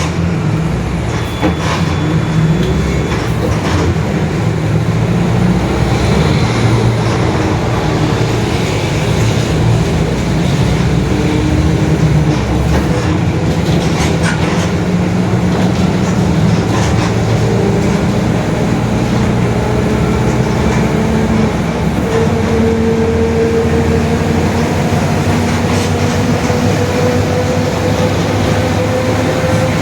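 Mercedes-Benz OF-1721 BlueTec 5 city bus under way: a steady diesel drone with a growling whine from the differential, which rises gently in pitch over the last several seconds. The whine is the sign of a noisy, growling differential.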